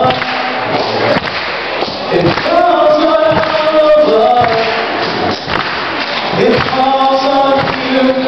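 A male voice singing a cappella into a handheld microphone, with no accompaniment: drawn-out sung phrases with long held notes, broken by short gaps.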